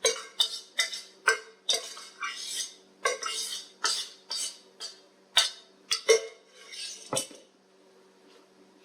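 A serving utensil scooping fried rice out of a pan onto a plate: quick clinks and scrapes against the pan and dish, about two or three a second, stopping about seven and a half seconds in.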